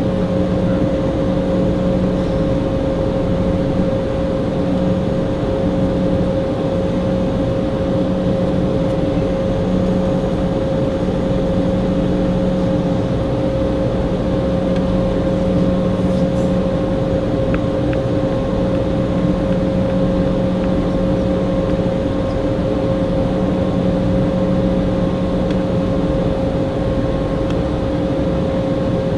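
Cabin noise of an Embraer E190 standing still on the ground at idle: a steady drone with a constant mid-pitched whine over a lower hum.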